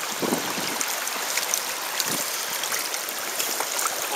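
Stream water rushing steadily, with a couple of brief splashes near the start and about two seconds in.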